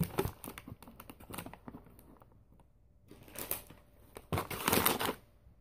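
Handling packaged snacks in a cardboard box: a run of small clicks and knocks as a soda can is set down among the plastic snack bags, with bag crinkling and rustling. It ends in a louder burst of rustling near the end.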